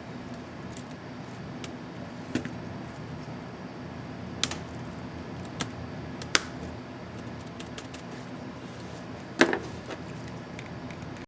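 Scattered small sharp clicks and taps from work on a laptop's numpad keycap, about seven in all with the loudest near the end, over a steady low hum.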